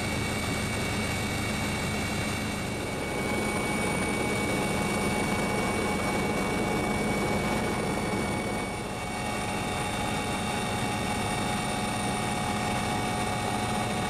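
Helicopter running steadily in flight: a constant dense engine and rotor noise with steady high-pitched whines over it, dipping slightly about two-thirds of the way through.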